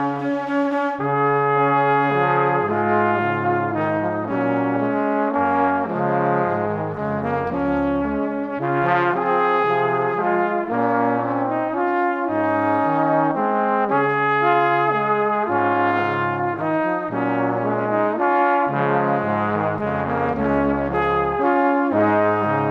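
Background instrumental music: slow held chords with a low line stepping between notes.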